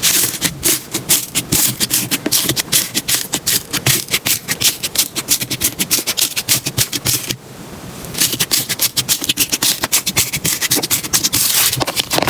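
Slime being worked by hand, giving rapid sticky clicks and crackles, several a second, with a short break about seven seconds in.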